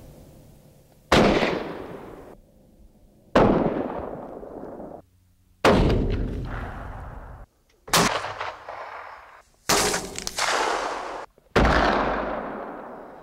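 Six loud, sudden bangs like gunshots, about two seconds apart. Each one dies away over a second or two and then cuts off sharply.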